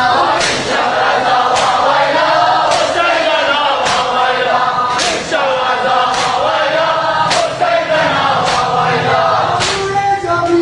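Shia noha mourning chant sung by a group of men in unison, kept in time by sharp matam chest-beating strokes about once a second.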